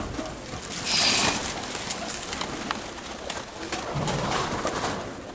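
A flock of domestic diving pigeons landing and moving about on the ground: wing flaps throughout, with a loud flurry of wings about a second in, and pigeons cooing.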